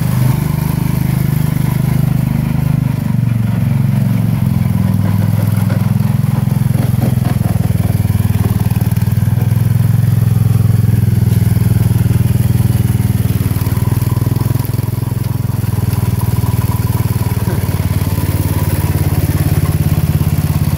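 The single-cylinder 16 hp Tecumseh OH160 engine of a 1970 Sears Suburban lawn tractor running. Its speed drops over the first few seconds, then holds steady.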